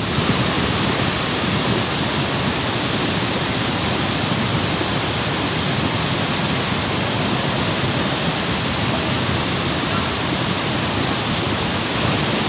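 Cold lahar, a volcanic mudflow of muddy water and sand, rushing in a steady, continuous torrent.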